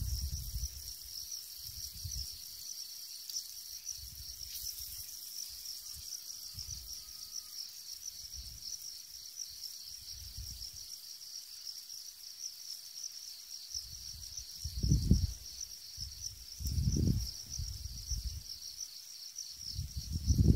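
Insects trilling steadily in a high, fast-pulsing chorus. A few short low rumbles break in, the loudest near the end.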